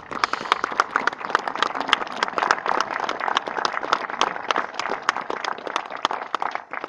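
Crowd applauding: a dense patter of hand claps that starts abruptly and thins out near the end.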